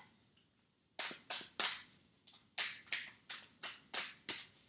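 Tarot cards being handled and shuffled by hand: a run of about ten short, crisp slaps, roughly three a second, starting about a second in.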